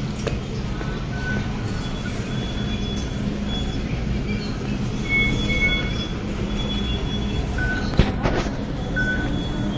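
MTR Tseung Kwan O line M-Train car running through a station, heard from inside the car, with short high-pitched whining tones coming and going over the running noise. The uploader calls this the car's "ghost-howl" braking noise. A sharp click comes about 8 seconds in.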